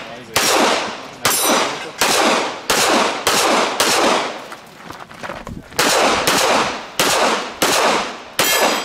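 Handgun shots fired in a quick string, roughly three every two seconds, each with a long echoing tail, with a pause of about two seconds midway. A few of the hits ring on steel plate targets.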